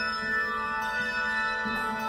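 Handbell choir ringing a piece, many bell tones sustaining and overlapping as new notes are struck.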